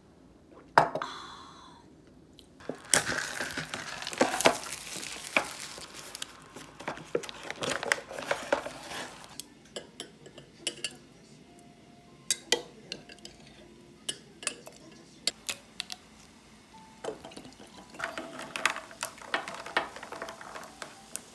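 Dishes and cutlery clattering: a loud knock about a second in, then a metal spoon scraping and clinking against a glass jar and drinking glass as fruit preserve is spooned out, with scattered single clinks. Near the end, a spoon stirring in a glass, which rings faintly.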